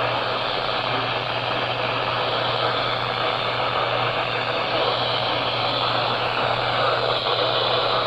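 Steady hiss of radio static from a NOAA Weather Radio receiver tuned to WXK80, with a low steady hum underneath and no voice.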